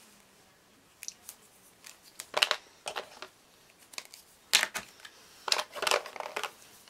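A string of short scrapes and rustles: a small metal spatula scraping pigment off a Faber-Castell Gelato crayon stick, and craft supplies in a plastic tray being handled.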